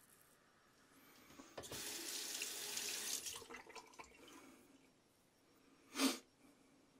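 Water running from a bathroom tap into a sink for about two seconds, then tapering off. About a second and a half after the water stops, there is a brief, loud whoosh.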